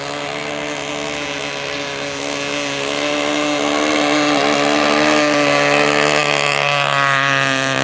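Merco 61 two-stroke glow engine in a model speedboat running at speed, growing louder over the first few seconds as the boat comes close, then holding steady.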